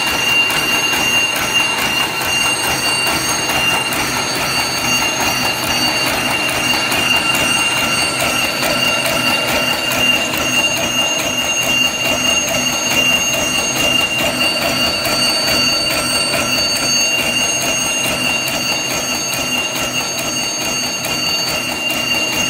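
Double-strand reverse-twist barbed wire making machine running at full production, twisting the line wires and wrapping the barbs: a steady high whine over a rapid, continuous mechanical clatter.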